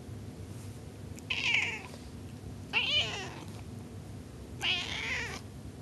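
Domestic cat meowing three times, each short call with a bending pitch, spaced a second or two apart, the first and last somewhat hoarse.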